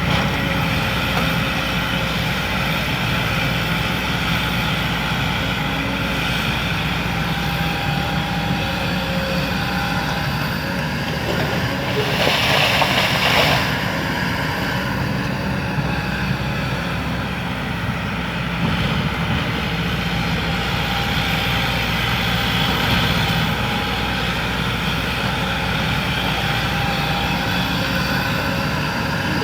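Excavator's diesel engine running steadily while it digs, with a brief louder rushing noise about twelve seconds in.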